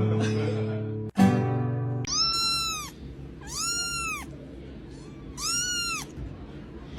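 Music for about two seconds, then a cat meows three times. Each meow is a drawn-out call, about a second long, that rises and then falls in pitch.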